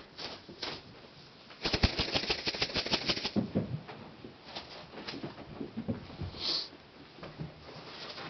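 Playing kittens scampering: a rapid flurry of paw and claw taps for about two seconds, then scattered lighter taps.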